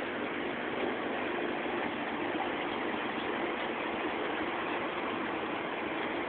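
Steady hiss of aerated water with a low, even hum from an aquarium's pump running.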